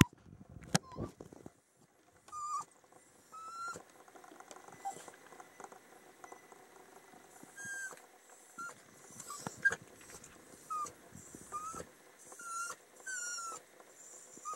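A small dog whining in short, high-pitched whimpers, several sliding down in pitch. There are only a few at first, then one every half second or so from about halfway in, as it fixes on a mouse it hears in the ceiling. Faint ticking and scratching sounds come in between.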